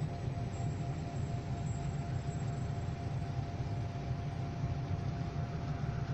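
A steady low rumbling noise with a faint steady hum over it.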